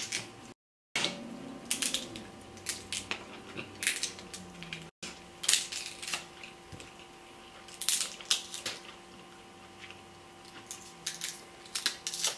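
Boiled king crab leg shells cracking and crunching as they are broken open by hand: a run of sharp, irregular cracks and snaps.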